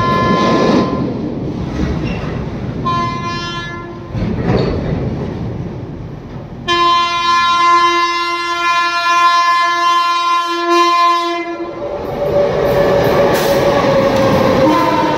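Horn of an Indian Railways WAP7 electric locomotive on an approaching express: two shorter blasts, then one long blast of about five seconds. Then the locomotive runs close past with a loud rumble and the clatter of wheels over the rail joints, and the horn sounds again near the end.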